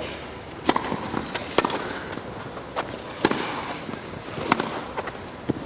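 A tennis rally on a grass court: sharp pops of the ball being struck by racquets and bouncing, about one a second, over a low crowd and court hush.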